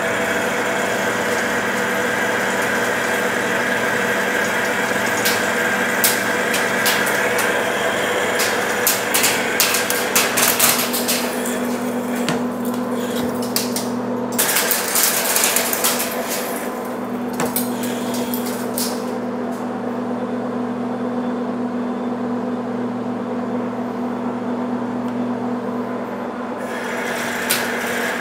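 Metal lathe running with a steady gear hum while a boring bar cuts the bore of a large steel drive sprocket, chips crackling and rattling as it cuts. About two thirds of the way in, the cutting noise drops away and leaves the lathe's steady hum, then comes back just before the end.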